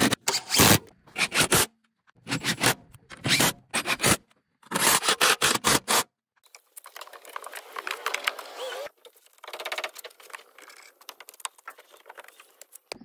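Scraping and clattering of parts being handled and worked on a car in a workshop, in loud short bursts broken off abruptly several times during the first six seconds, then fainter and more continuous.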